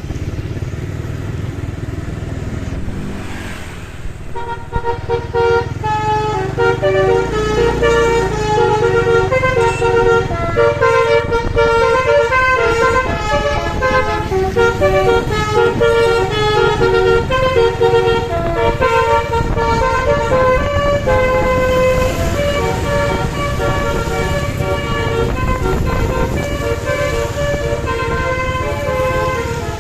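Multi-note "basuri" telolet bus horn playing a melody, its notes stepping up and down several times a second, starting about four seconds in over steady engine rumble.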